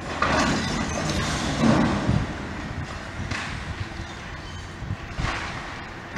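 High-reach demolition excavator breaking up a concrete building: crunching concrete and falling debris in several bursts, the loudest about a second and a half in, with shorter ones about three and five seconds in, over the machine's steady running.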